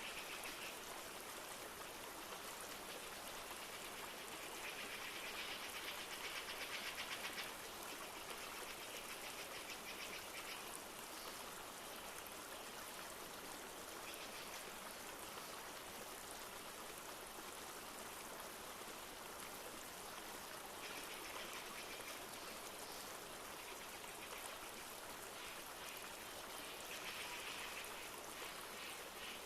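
A flowing river or stream running steadily, with its even rushing water sound. A high, rapid trill swells and fades several times over it.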